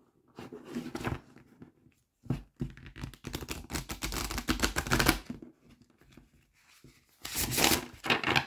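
A deck of large cards being shuffled by hand, the cards sliding and slapping against each other: a few short rustles, then a dense run of shuffling for about three seconds, a pause, and a shorter burst near the end.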